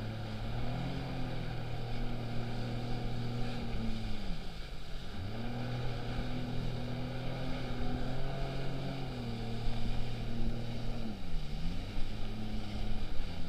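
Jet ski engine running at speed, heard from on board. Its pitch dips and climbs back twice, about four and a half seconds in and again near eleven seconds.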